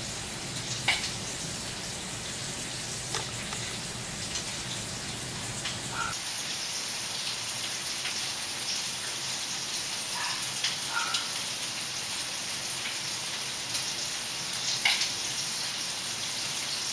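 Chopped bacon frying in olive oil in a pan: a steady sizzling hiss with scattered pops and crackles.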